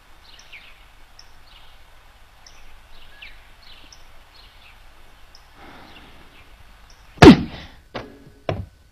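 Faint bird chirps, then one loud heavy thunk about seven seconds in, followed quickly by two sharper, quieter knocks.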